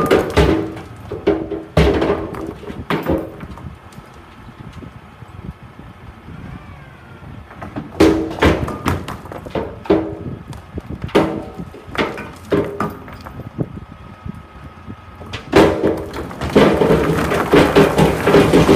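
Large boulders sliding and tumbling out of a tipping steel dump truck body through the tailgate, knocking against each other and the steel and thudding onto the ground. The rock fall comes in bursts of clatter with a quieter spell in between, over the steady low rumble of the truck's engine, and becomes a continuous flow near the end.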